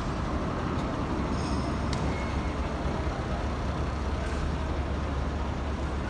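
Steady wind rumbling on the microphone over an even outdoor hiss, with a faint click about two seconds in.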